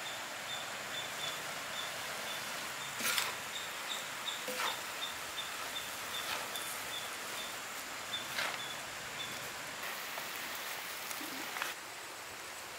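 Steady hiss of a large pan of squid, prawn and scrambled egg sizzling, broken by a few short scrapes or knocks of a ladle. A faint, high, even chirp repeats about three times a second through most of it.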